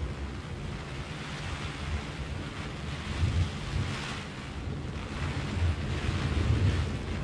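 Heavy rain pattering on a clear plastic umbrella overhead in a steady hiss, with irregular low rumbles of wind buffeting the microphone.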